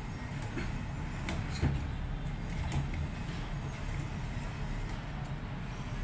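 Scattered light clicks and knocks of hands fitting a replacement door switch lock into an LG front-load washing machine's door opening, the sharpest knock about one and a half seconds in, over a steady low hum.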